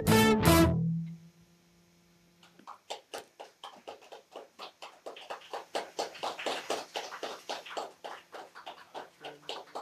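A band's last electric-guitar chord hits ring out and die away in the first second. After a short pause, a few people clap for about seven seconds, building up and then tapering off: applause for the song just finished.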